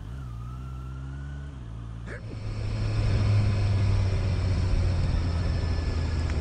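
A Honda E-Clutch motorcycle's inline-four engine idles steadily for about two seconds. It then runs louder as the bike rides away.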